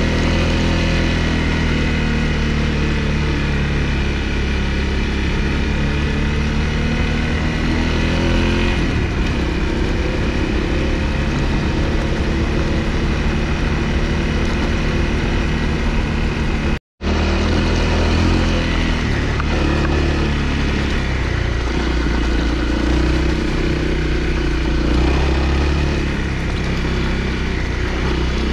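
Honda CRF250L's single-cylinder engine running as the motorcycle rides a dirt track, its pitch rising and falling with the throttle. The sound cuts out for a moment a little past the middle, then the engine carries on.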